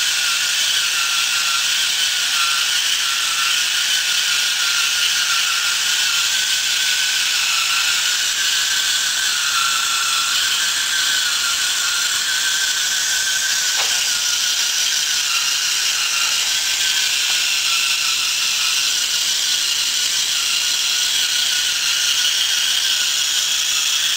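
Small electric gear motor driving a homemade wooden crawler-tractor model, running with a steady high whirring gear noise.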